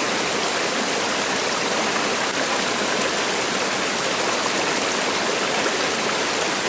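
Small rocky stream rushing steadily over stones.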